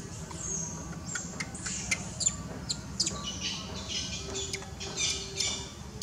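A flurry of short, high-pitched animal chirps and squeaks, many quick rising and falling calls, busiest in the second half.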